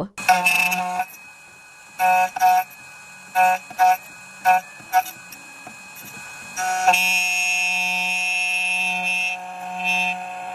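Electronic beeping: a string of short tones at uneven spacing, then a long steady tone from about seven seconds in, over a faint low hum.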